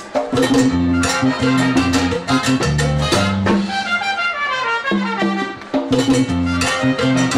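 Live salsa band playing: a trumpet section over bass, keyboard and percussion.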